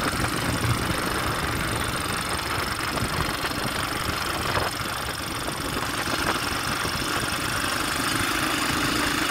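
Steady wind rush over the microphone mixed with the engine and tyre noise of a motorcycle riding along a road.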